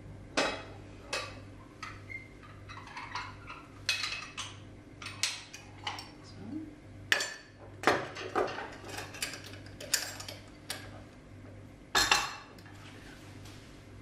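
Metal spoon clinking and scraping against a glass jar and a metal bread-machine baking pan as flour is scooped in, an irregular string of clinks, the loudest about twelve seconds in.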